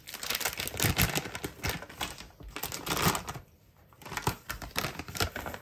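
A quick run of small clicks and taps: a black mesh sieve and a metal spoon knocking against a plastic mixing bowl as they are handled. There is a short lull about three and a half seconds in.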